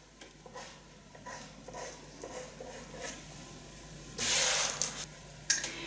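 Felt-tip marker drawing on a paper pattern sheet: several faint short strokes, then a louder, longer stroke about four seconds in and a short one after it.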